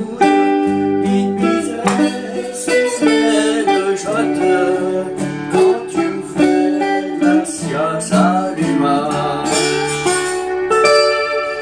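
Acoustic dreadnought guitar played solo as a blues, with picked single notes and chords. Some melody notes are bent and waver in pitch, and a chord is left ringing near the end.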